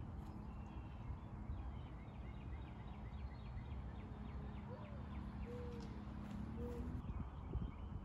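Wind rumbling on the microphone, with birds calling in the distance: a rapid run of short high chirps over the first few seconds, then three short lower calls around the middle. A faint steady hum runs underneath until near the end.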